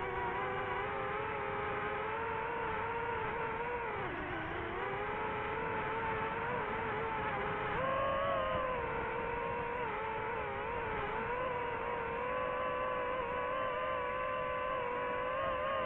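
Drone's electric motors and propellers whining steadily. The pitch sags briefly about four seconds in, then steps up about halfway through as the throttle changes.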